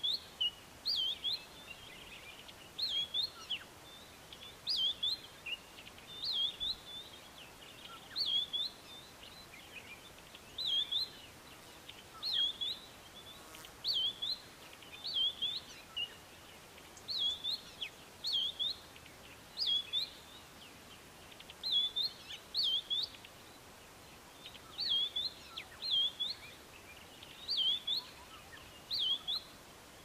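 White-browed scrub robin singing: short, loud, high phrases of quick sweeping whistled notes, repeated over and over about once a second.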